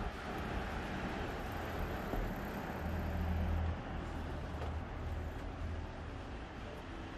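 Steady city street noise from road traffic on the adjacent road, with a louder low rumble about three seconds in.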